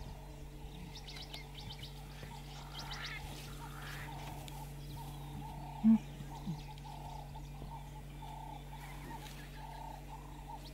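Outdoor wildlife ambience: a short animal call repeated about twice a second, with scattered high chirps over it. One brief low sound, the loudest thing here, about six seconds in.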